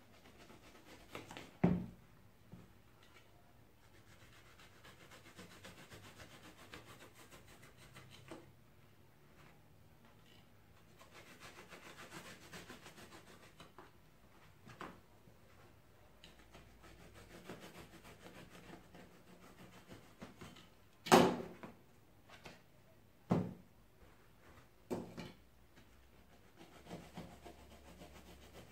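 Hand cutter trimming and shaping a thick block of upholstery foam, a quiet rubbing, scraping sound of blade and foam. A few sharp knocks break in: one near the start, the loudest about two-thirds of the way through, and two more soon after.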